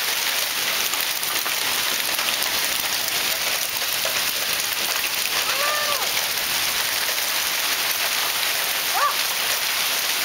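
Hail and heavy rain pelting down: a steady, dense hiss full of small sharp ticks as hailstones strike. Two brief pitched sounds cut through it, one about six seconds in and a shorter rising one near the end.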